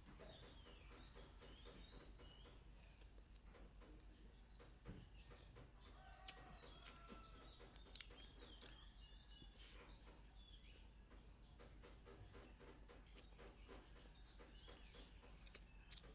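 Faint outdoor background: a steady high-pitched insect drone with faint bird calls, likely chickens clucking, and a few sharp clicks scattered through it.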